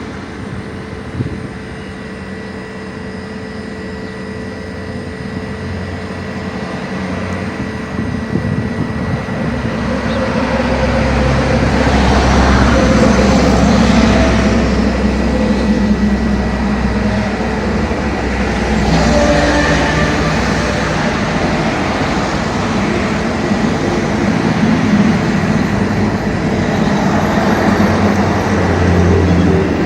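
A low rumbling drone in the sky that grows louder over the first dozen seconds, then swells and fades in slow waves.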